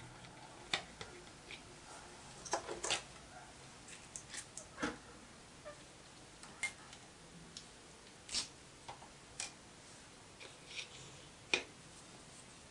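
Small metal parts being handled on a lathe's cross-slide: scattered light metallic clicks and taps at irregular intervals. A sharper knock comes about a second in and another near the end.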